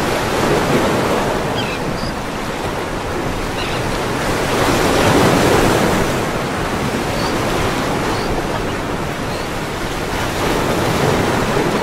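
Ocean surf: waves washing in as a steady rush of noise, swelling about halfway through and again near the end.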